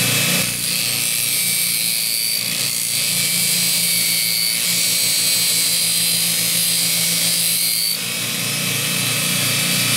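A 1/2 hp Baldor grinder with a 10-inch expander wheel and 100-grit zirconia belt running steadily while a steel fuller is ground cold against the belt and moved across it, giving a steady motor hum under a high grinding hiss. The level dips briefly about half a second in and again about eight seconds in, as the contact eases.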